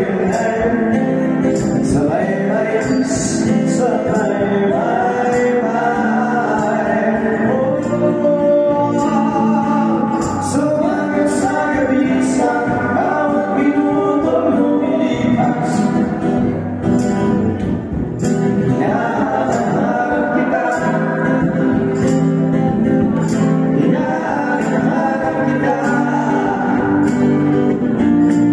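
Live amplified music: a man singing a slow song over strummed acoustic guitar, heard through the PA in a music bar.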